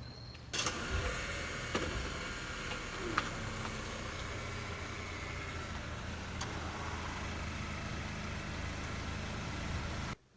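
Car engine running steadily, a low hum with road noise, starting suddenly about half a second in and cutting off just before the end.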